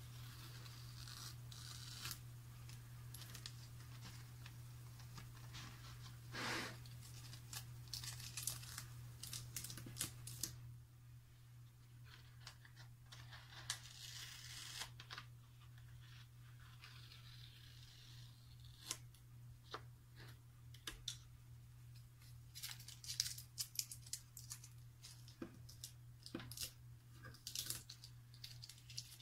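Blue painter's tape being peeled off the edges of a watercolour painting: a run of short tearing rips as the tape lifts from the paper, with a few longer peels and light rustling, thinning out for a while in the middle and picking up again near the end. A steady low hum runs underneath.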